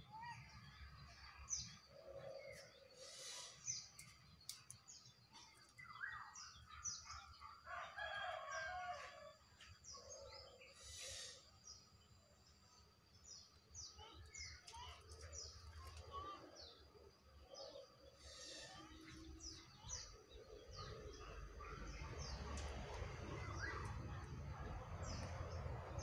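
Small songbirds chirping over and over in short, high calls, with lower calls from a chicken or rooster in the background. A low rushing noise builds over the last few seconds.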